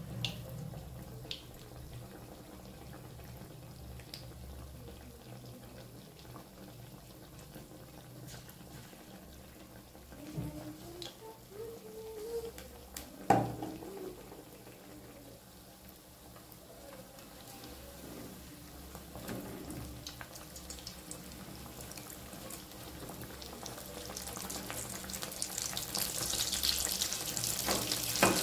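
Battered vegetable chops deep-frying in hot oil in an aluminium kadai: steady sizzling and bubbling that grows louder and hissier over the last few seconds. A single sharp knock sounds about halfway through.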